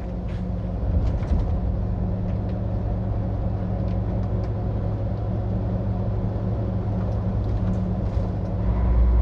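A vehicle engine drones steadily, heard from inside the cab while driving, over the hiss of tyres on a wet road. The low drone grows louder near the end.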